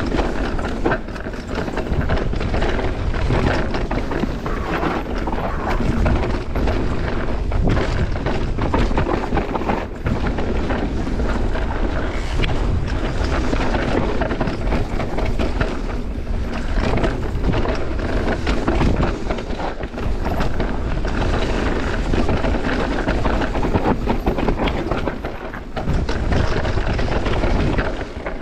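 Mountain bike descending a rough, rocky trail: steady wind noise on the camera microphone, with tyres grinding over rock and constant clicks and knocks from the bike rattling over bumps.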